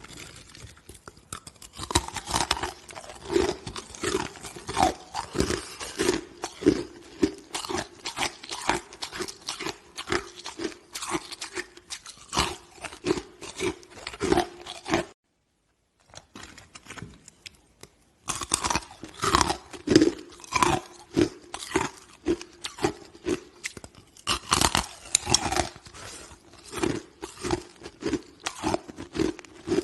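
A person biting and chewing hard chunks of ice, a rapid run of loud, sharp crunches close to the microphone. The crunching cuts off suddenly about halfway through, comes back faint, then resumes fully a few seconds later.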